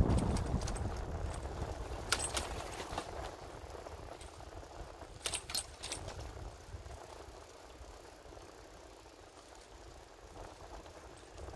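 Wind rumbling on the microphone of a bicycle rider, dying away over several seconds, with a few sharp rattling clicks about two seconds in and again about five to six seconds in.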